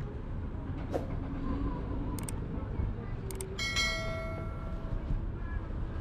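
Urban outdoor ambience: a steady low rumble of traffic with faint voices. About three and a half seconds in, a bright ringing tone sounds and fades over about a second and a half.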